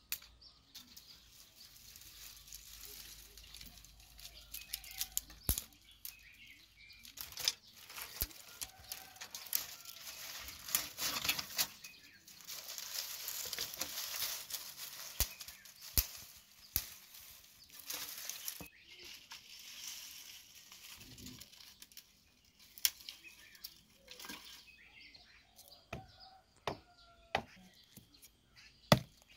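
Dry brushwood twigs snapping and crackling, with the rustle of dry leaves, as they are broken and handled by hand. Near the end come a few sharp blows of a small hatchet chopping dried dung cakes.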